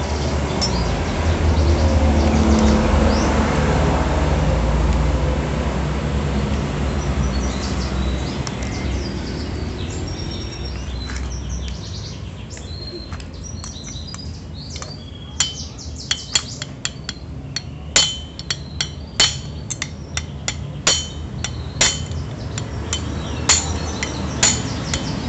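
Metal tools and small steel parts clicking and clinking against a motorcycle cylinder head while its valves are removed with a valve spring compressor. The clicks come irregularly and thicken over the second half, each with a short metallic ring. A low steady rumble fills the first part.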